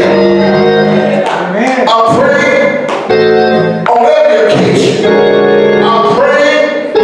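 Gospel organ music, a Hammond-style organ playing loud held chords that change every second or two.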